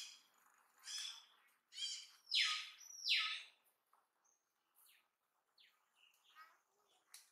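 Baby macaque giving high-pitched calls, about one a second, the two loudest around two and a half and three seconds in, each falling in pitch, followed by fainter short squeaks.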